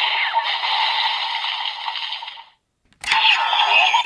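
Electronic sound effects played through a Kamen Rider Decade toy transformation belt's small speaker. The sound cuts off about two and a half seconds in, then a sharp click and a new sound effect start near the end.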